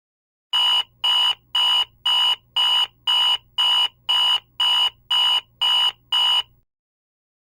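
Electronic alarm clock beeping: twelve even, buzzy beeps, about two a second, starting about half a second in and then stopping.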